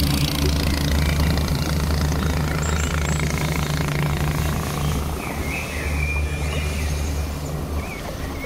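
Longtail boat engine running steadily under way, a low hum over the rush of water and wind.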